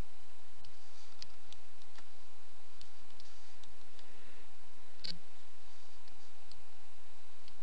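Light clicks at an uneven pace, one for each letter typed on an on-screen keyboard, over a steady low hum and hiss; one click about five seconds in is louder than the rest.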